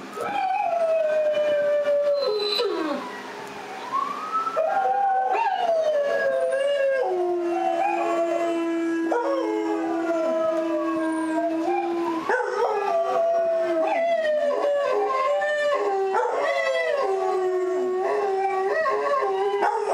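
Several dogs howling together, long wavering howls overlapping at different pitches, with one low howl held steady for several seconds through the middle.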